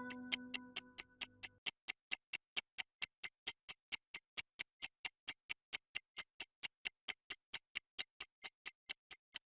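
Clock ticking in an even rhythm of about four ticks a second. Held music notes fade out under it during the first second and a half.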